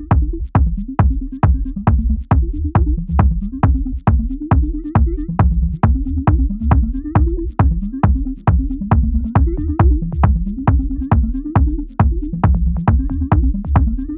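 Electronic dance music with a steady kick-drum beat, about two beats a second, over a strong bass line.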